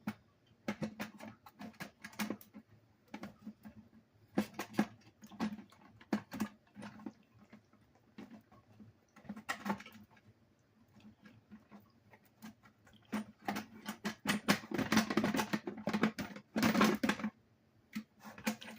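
A stiff sliding door on a small homemade toy cabinet being jerked and pushed along its rail: irregular scraping clicks and rattles, thickening into a run of denser rattling near the end. The door is sticking and catching on its rail.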